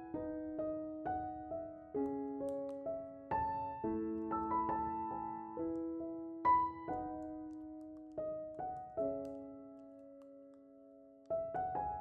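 Background piano music: a slow, gentle piece of struck notes and chords that ring and fade, with one long chord dying away before new notes come in near the end.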